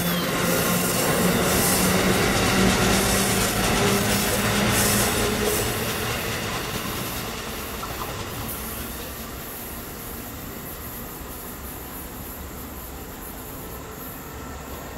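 Amtrak Northeast Regional's stainless-steel Amfleet passenger coaches rolling past at speed, steel wheels running on the rails. After about five seconds the last car is by and the sound fades away as the train pulls off.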